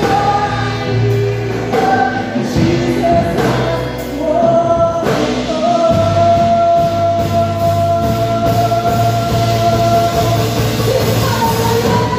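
Live worship band playing: a woman sings lead over electric and acoustic guitars, bass guitar and a drum kit. She holds one long note through the second half.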